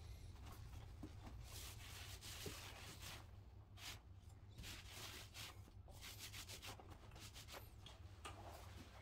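Oversized paint roller rolling paint onto a wall: faint, repeated rubbing strokes.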